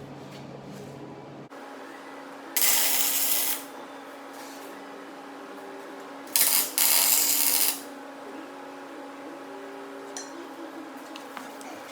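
MIG welder tacking a 3-inch solid steel bar with .035 hard wire and 75/25 shielding gas: two bursts of arc crackle, the first about a second long and the second about a second and a half, over a steady hum.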